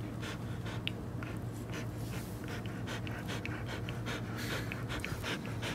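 Standard poodle panting close to the microphone, with rapid, even breaths in and out, about three a second.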